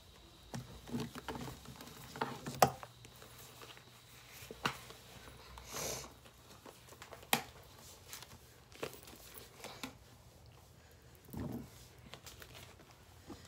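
Rustling and handling close to the microphone, with scattered light taps and clicks, a sharper one about two and a half seconds in.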